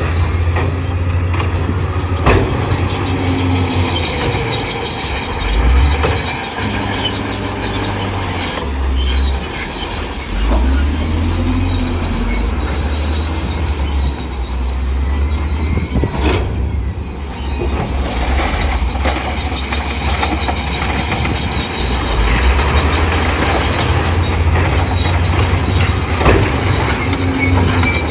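Crawler bulldozer working: its diesel engine rumbles steadily while the steel tracks give off a high-pitched squeal that comes and goes, with a few sharp metallic knocks.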